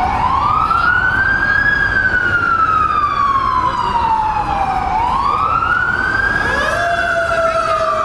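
Emergency vehicle siren wailing, its pitch rising and falling slowly, about once every five seconds. A second, lower siren joins a little over six seconds in.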